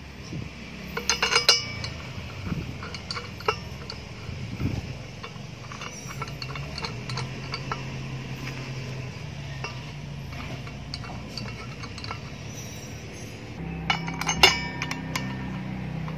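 Light metallic clinks and ticks of an aluminium wheel flange, its bolts and a T-handle hex key being handled as the flange is bolted onto a motorcycle wheel hub. A quick cluster of clinks comes about a second in, lighter scattered ticks follow, and another cluster comes near the end.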